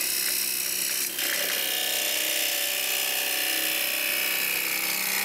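Carbide-tipped turning tool cutting into wood spinning on a lathe: a steady hiss of shavings being sheared, over the lathe motor's hum.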